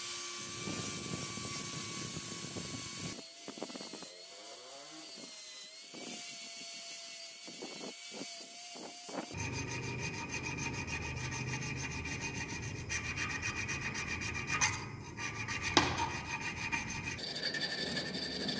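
An angle grinder's disc grinding a metal dagger guard, then, about halfway through, a hand file rasping across the guard's edge in repeated strokes, with a couple of sharper knocks near the end.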